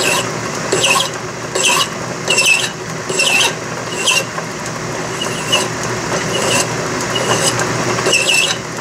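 Hand file stroked against the end of a handle turning in a Logan lathe: about ten short file strokes, just under a second apart, over the steady running of the lathe.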